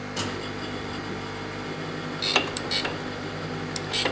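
Jones & Shipman 540 surface grinder running with the wheel spinning free and the table traversing, a steady mechanical hum. A few sharp clicks come about two seconds in and again near the end. The wheel is not yet touching the work.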